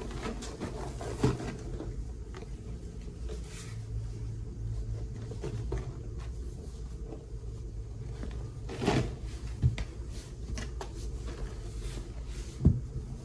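Powdered cleanser shaken from canisters onto two sponges, then hands patting and pressing the powder into the sponges, with soft rustling and taps and a few sharper knocks, the loudest near the end.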